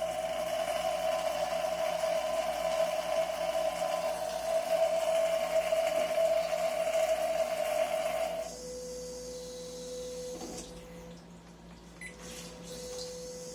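TOTO TCF8PM32 electronic bidet toilet seat running during a test of its water spray after repair, with a steady whine that cuts off sharply about eight seconds in. A fainter, lower hum with a few clicks follows.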